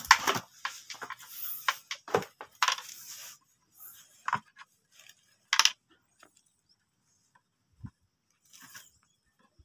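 Freshly caught fish flapping in a plastic crate, their bodies and tails slapping the plastic in a quick run of taps and clicks over the first few seconds, then only a few scattered taps.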